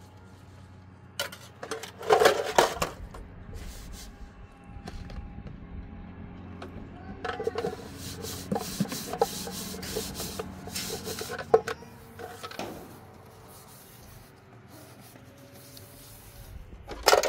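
Irregular rubbing and scraping with a few sharp knocks, in bursts: a loud spell about two seconds in, a longer busy stretch in the middle and another at the end.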